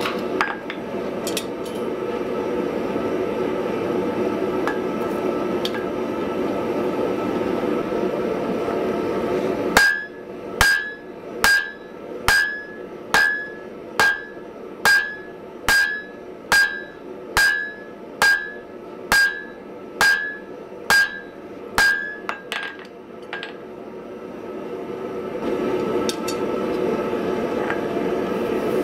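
Hand hammer striking a hot wrought-iron hammer blank on the anvil: about sixteen evenly spaced blows, a little over one a second, each with a short anvil ring. Before the blows and again near the end there is a steady forge roar.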